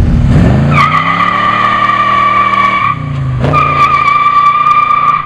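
1967 Pontiac Firebird's built 400 cubic-inch V8 revving hard under acceleration while the rear tires squeal, a steady high squeal. About three seconds in, the engine note falls and the squeal breaks off as the Muncie four-speed is shifted. Then the revs climb and the tires squeal again.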